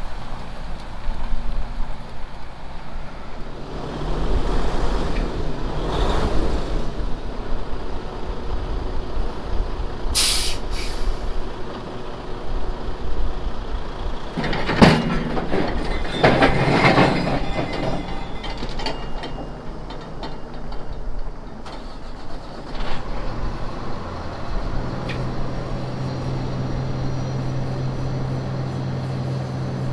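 Heavy diesel truck running while its lowboy trailer is unloaded. Air hisses out sharply about ten seconds in, and there is a loud knock around fifteen seconds in. Near the end an engine settles into a steady idle.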